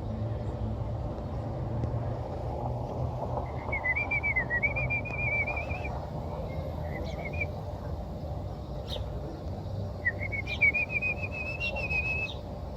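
High, rapidly warbling whistled chirps in phrases: one starting about three and a half seconds in and lasting a few seconds, a short one after it, and another near the end. Under them is a steady low rumble.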